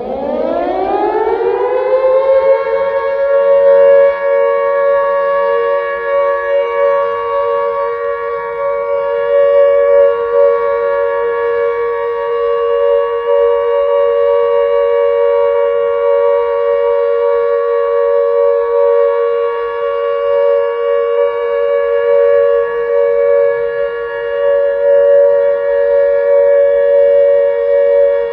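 Outdoor civil defense siren winding up over the first couple of seconds, then holding one steady, loud tone made of two close pitches that sound together as a chord.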